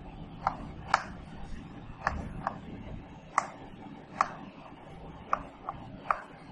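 Chalk on a blackboard while numbers are being written: sharp, uneven taps and clicks, about nine of them, as the chalk strikes the board.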